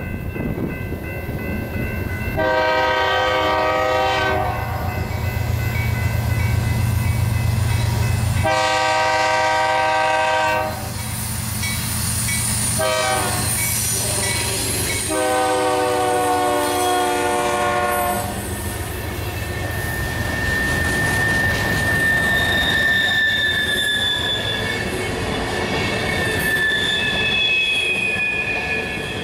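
Freight train led by a BNSF GE C44-9W diesel locomotive, its air horn sounding long, long, short, long (the standard grade-crossing warning) over the rumble of the diesel engine. In the second half the freight cars roll past with high-pitched wheel squeal.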